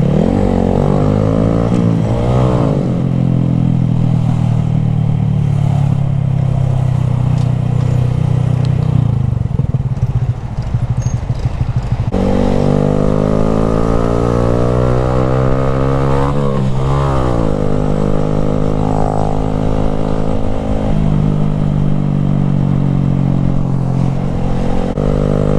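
Honda Grom's small single-cylinder engine under way, with the baffle out of its aftermarket exhaust, revving up through the gears near the start, then holding steady revs. The revs drop about halfway through, rise again a few seconds later, and settle back to cruising, over a low rumble of wind on the microphone.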